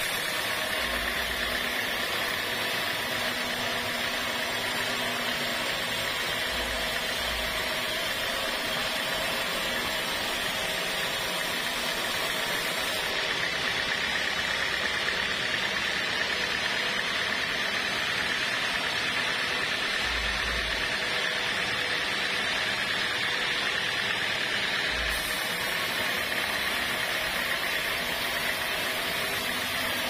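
Homemade band sawmill running steadily, its blade cutting lengthwise through a squared beam of waru gombong wood.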